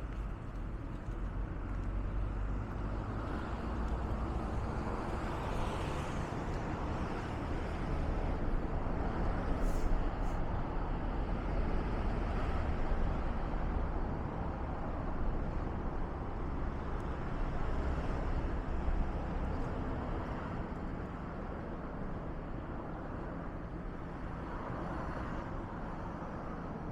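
Fallen leaves burning in a smokeless charcoal kiln (open steel cone): a steady rushing noise of flames that swells a little midway, with a couple of sharp crackles about ten seconds in.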